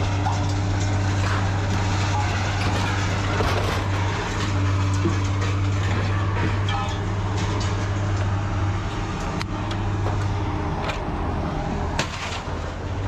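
Truck driving on the road: a steady low engine drone with road noise.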